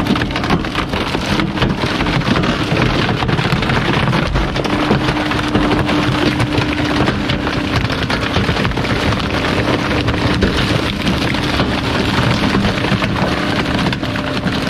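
Rear-loader garbage truck's packer blade crushing wooden pallets in the hopper: a dense crackle of snapping and splintering wood over a steady mechanical hum.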